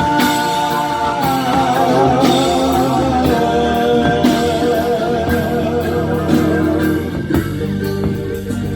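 Live folk-pop band with guitars and a steady beat. A voice holds the last sung note with vibrato for about four seconds, and then the band carries on with an instrumental passage.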